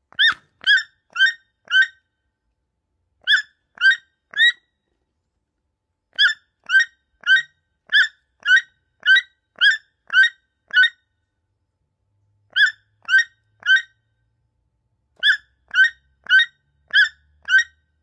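Toucan calling: short calls at about two a second, all on much the same pitch, in runs of three to nine with pauses between.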